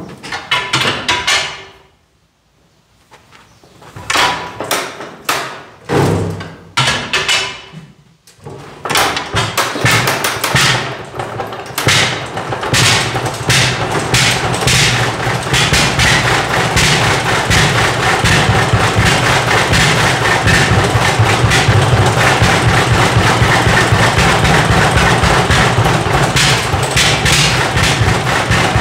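Hart-Parr 30-60 tractor's big two-cylinder engine being cold started: a few separate loud knocks and pops as it is turned over, then it catches about nine seconds in and settles into a steady, rapid exhaust beat.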